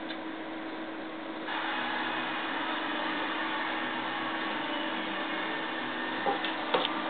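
Steady mechanical whir with a constant low hum, stepping up louder about a second and a half in; two short knocks near the end.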